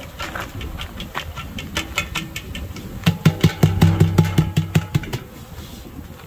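Clicks and knocks of metal feed cans and plastic bee package boxes being handled. About halfway through, a low hum with a rapid pulse sounds for about two seconds and is the loudest thing.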